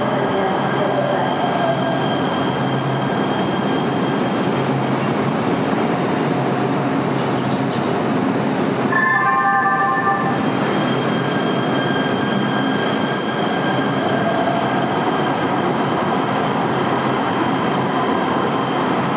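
LA Metro light rail train running through an underground station: a continuous steady rumble with thin steady high tones over it. About nine seconds in there is a brief, short-lived cluster of higher tones.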